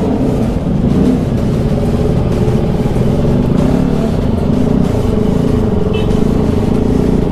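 Motorcycle engine running under way, its pitch rising and falling repeatedly as the throttle is worked, over steady road and wind rush.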